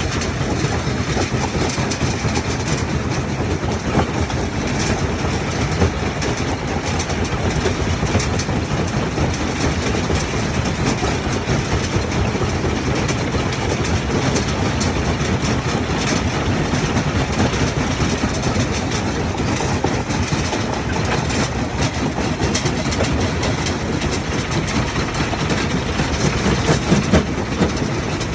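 Heavy machinery running steadily and loudly, with a constant dense rattle and clatter over the engine noise.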